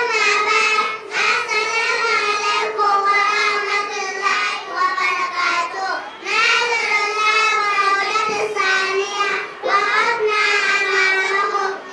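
A group of young children singing together in sustained melodic phrases, with short breaks about six seconds in and again near ten seconds.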